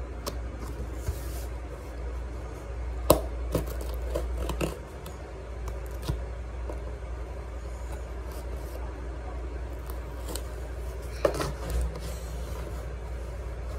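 A cardboard shipping package being cut and pried open: scraping and cutting with sharp clicks and knocks, the loudest about three seconds in and again around eleven seconds. A steady low hum runs underneath.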